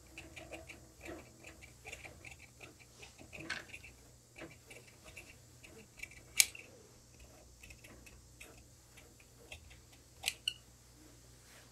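Large tailor's shears cutting through coat fabric on a cutting table: a run of small, quiet snips and clicks of the blades, with a sharper click about six seconds in and two more near the end.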